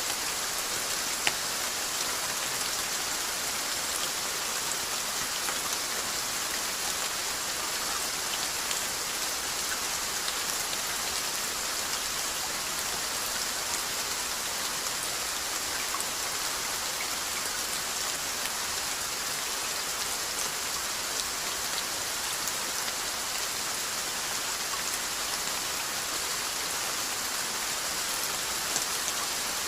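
Steady rainfall pattering on a surface, an even hiss with scattered individual drop ticks; one sharper drop tick about a second in.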